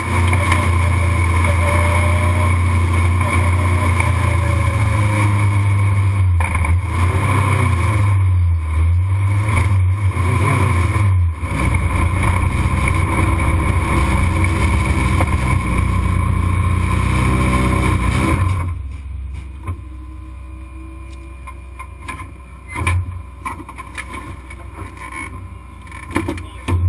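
Legend race car's engine heard from inside the cockpit, running loudly with its pitch shifting as the driver eases around the track. About two-thirds of the way through the sound drops sharply to a much quieter rumble with a few knocks.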